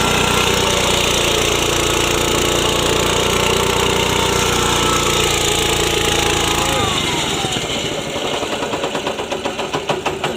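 Small engine of a mini rice mill/grinder (7–7.5 HP MGX 210) running steadily under load. About seven seconds in it cuts out, and the machine winds down with a falling pitch and slowing, fading chugs.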